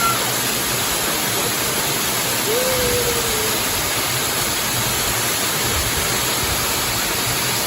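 Waterfall cascading, a steady, even rush of falling water.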